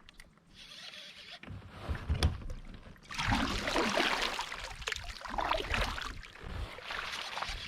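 Water splashing and sloshing around a fishing kayak, with a sharp knock about two seconds in and louder, uneven splashing from about three seconds on.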